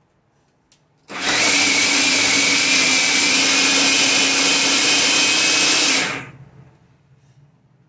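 Food processor motor running steadily with a high whine, blending cream cheese and eggs. It starts abruptly about a second in, runs for about five seconds, then cuts off and spins down.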